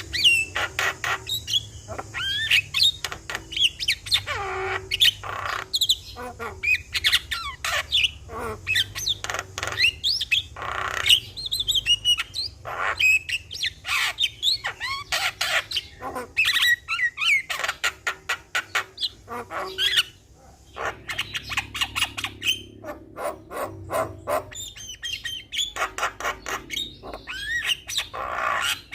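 Javan myna (jalak kebo) singing without pause: a fast, varied stream of chattering clicks, whistled glides and harsh squawks.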